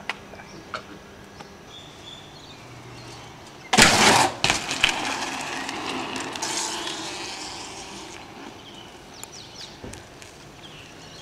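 A BMX bike strikes a concrete ledge with a loud, sudden scrape lasting under a second, about four seconds in. Its tyres then roll over pavement with a hiss that fades away.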